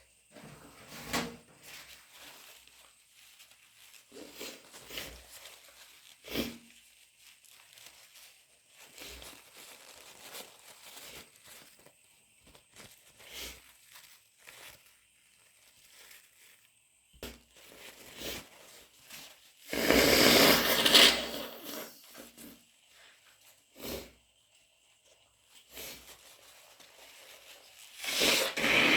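Nose blowing into a tissue through a head cold's congestion, loudest in one long blow about two-thirds of the way through and again at the end, with tissue crinkling and rustling in between.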